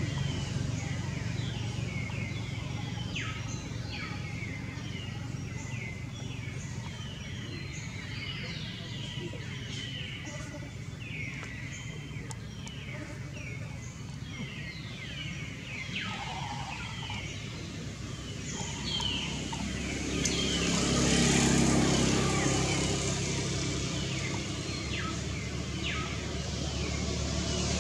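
Many birds chirping in the trees, short quick falling chirps overlapping one another, over a low steady rumble. A louder wash of noise swells up about two-thirds of the way through and again near the end.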